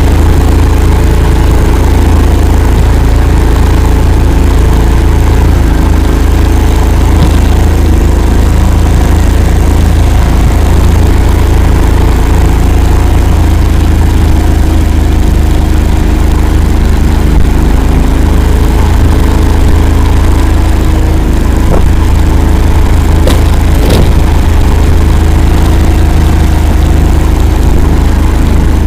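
Engine of an Akula swamp all-terrain vehicle running steadily as it drives, with a loud, even drone and a couple of faint clicks near the end.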